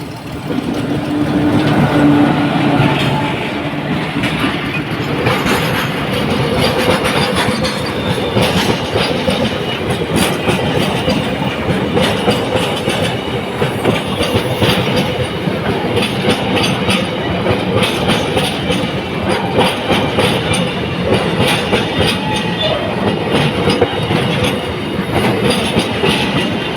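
A train running along the track, its wheels clattering over the rail joints with a steady hum underneath.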